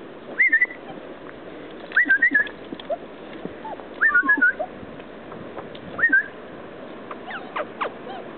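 High-pitched chirping calls: a short warbling phrase about every two seconds, then fainter scattered squeaks near the end.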